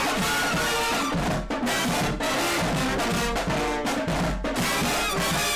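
Marching band playing: sousaphones and other brass horns over drums, with repeated drum strikes.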